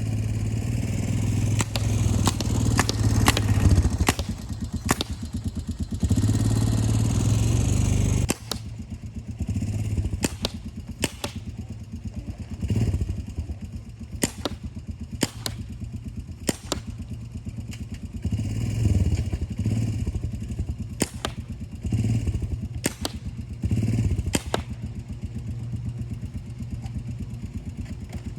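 Honda Recon TRX250 four-wheeler's single-cylinder engine running, louder for the first eight seconds and then lower. A remote-triggered, servo-pulled paintball gun mounted on the four-wheeler fires well over a dozen sharp pops at uneven intervals.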